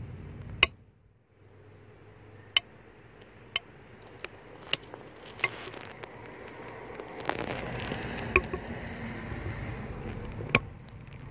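Ratchet with a 10 mm deep socket on a long extension being worked on a Sprinter glow plug: single sharp metallic clicks about one a second, with rustling handling noise between about 7 and 10 seconds in.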